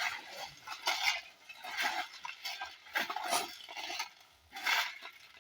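Metal tools scraping and clinking in irregular strokes, about half a dozen in a few seconds.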